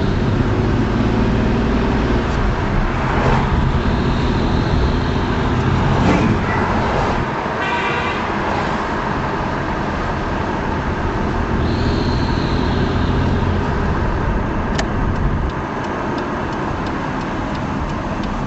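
Nissan Maxima engine running with an unexplained fluttering sound. Its level drops in steps about 7 seconds in and again near the end.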